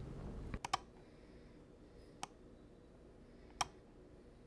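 A few sharp computer mouse clicks over faint room tone: a quick pair about half a second in, then single clicks near the middle and near the end.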